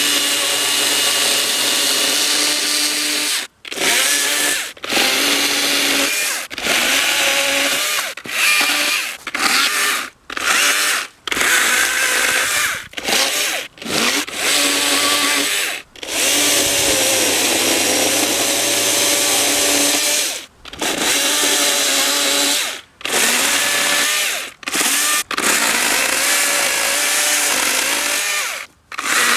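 Husqvarna 120i battery-powered electric chainsaw cutting through a fallen tree. The motor whines loudly, its pitch dipping and rising as the chain bites into the wood, and the trigger is let off and squeezed again many times, leaving brief gaps.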